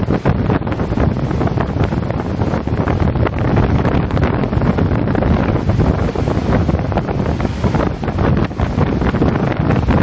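Storm-force wind buffeting the microphone in loud, gusty rumbles, over the noise of heavy breaking seas.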